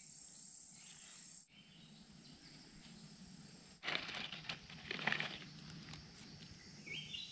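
Woodland ambience with a steady high insect drone that cuts off about one and a half seconds in, then two short bouts of rustling about four and five seconds in, and a brief rising chirp near the end.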